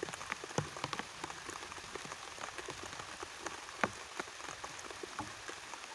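Light, steady rain pattering, with many separate drops ticking irregularly on nearby surfaces.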